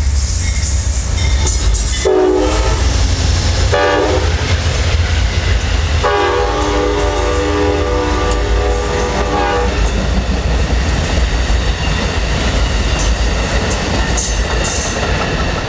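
Passenger train running past with a steady low rumble. Its multi-note horn sounds two short blasts about two and four seconds in, then one long blast of about three and a half seconds.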